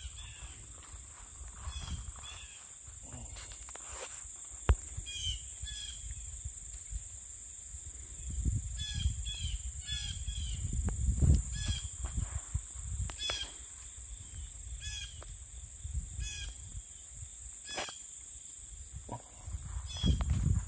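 Outdoor summer ambience: insects drone steadily in a high band while a bird repeats short chirping calls every second or two. There is one sharp click about five seconds in and a low rumble underneath.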